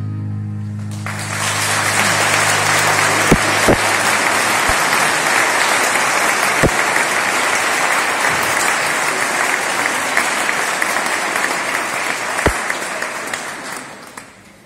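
The music's last held chord dies away, and about a second in an audience breaks into applause. The clapping stays steady and then fades out near the end.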